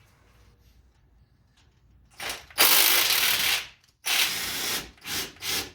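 Impact wrench spinning out the bolts that hold a 2004 Jeep Grand Cherokee's front wheel bearing: one long run of about a second, another shorter run, then two short blips near the end.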